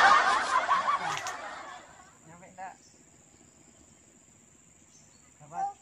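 Leaves and branches of a tangerine tree rustling as a child pulls at them to pick fruit, fading out within about two seconds. A steady high insect chirring runs underneath.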